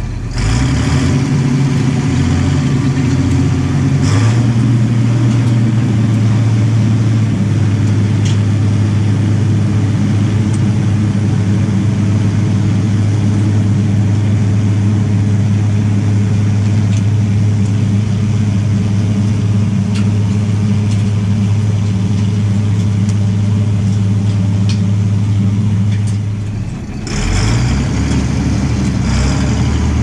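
Tractor engine running steadily as it pulls a manure spreader. Its pitch steps up a few times in the first several seconds and drops briefly near the end before settling again.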